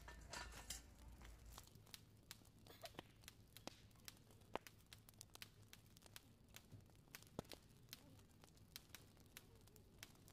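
Quiet soft tearing and scattered sharp ticks as clumps of enoki mushrooms are pulled apart by hand and dropped into a cast iron skillet set over a small wood-burning camp stove.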